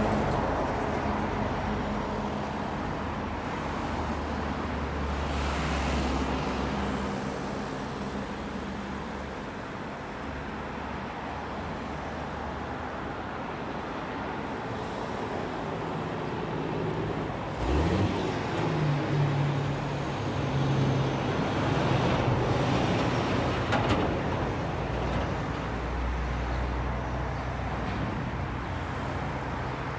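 Road traffic: the engines of vehicles running and passing, rising and falling over a steady background of traffic noise. There is a short thump about eighteen seconds in.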